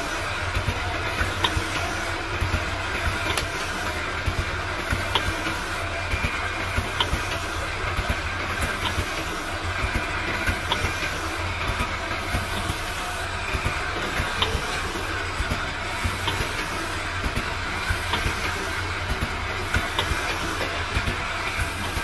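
Eye-drop bottle filling, plugging and capping machine running: a steady mechanical hum and hiss with frequent sharp clicks and clacks, a few a second, as the rotary turntable steps the bottles through the filling and capping heads.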